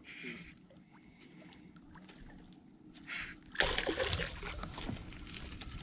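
A hooked fish thrashing and splashing at the water surface, starting about three and a half seconds in and going on in a run of sharp splashes.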